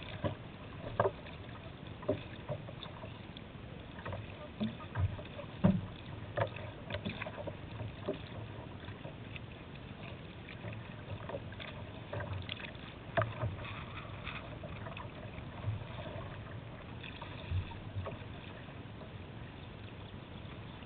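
Water sloshing and rushing against a kayak's hull as it is paddled, with irregular splashes and knocks from the paddle strokes.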